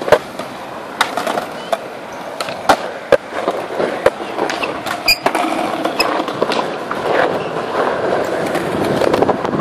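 Skateboard riding on smooth concrete: the wheels rolling, broken by a series of sharp clacks of the board hitting the ground. The rolling grows louder over the last few seconds.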